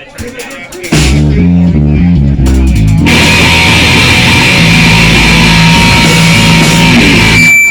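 Rock band playing a short loud soundcheck burst: electric guitar and bass on stepping notes, with the drums and cymbals crashing in about three seconds in, then everything stopping abruptly near the end.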